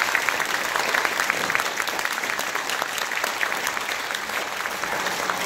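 Audience applauding: dense, continuous clapping that eases slightly toward the end.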